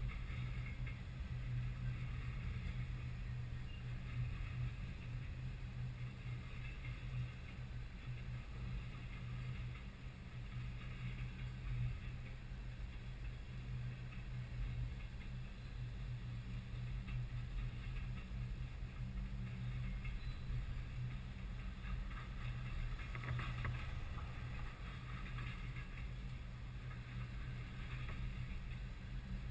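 Freight train cars rolling past: a steady low rumble of steel wheels on rail, with a hiss of higher noise over it.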